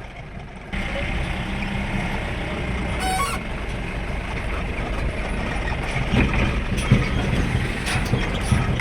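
Steady engine and road noise from a moving vehicle on the road, growing louder about a second in. A brief high tone sounds about three seconds in, and a few sharp knocks come near the end.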